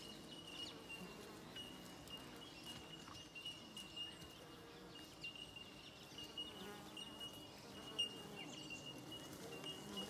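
Bees buzzing at their nest in a hollow tree trunk, a faint shifting hum with individual bees flying close past in short gliding tones. A thin steady high-pitched tone runs behind it, broken now and then.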